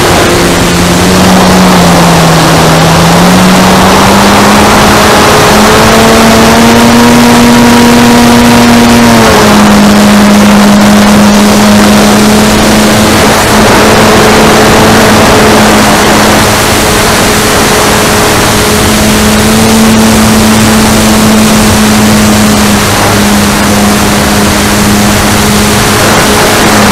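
Aerobeez MXS-R RC plane's motor and propeller running in flight, heard from an onboard camera with heavy wind noise. The drone changes pitch with throttle: it dips about two seconds in, rises around six seconds, drops sharply about nine seconds in, and then holds fairly steady.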